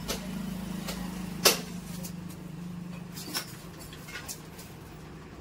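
Handling noise as a nylon fishing net is held up and a measuring tape is pulled along it: scattered clicks and rustles, with one sharp click about a second and a half in, over a steady low hum.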